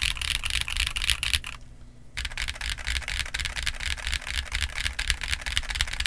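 Rapid typing on a TKC Portico68 mechanical keyboard with Tecsee Eminence linear switches and GJ Nautilus Cherry keycaps: a dense stream of keystrokes that pauses for about half a second near the two-second mark, then picks up again.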